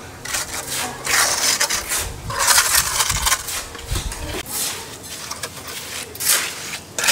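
Steel mason's trowel scraping and smoothing wet concrete, in a series of scraping strokes, each about half a second to a second long.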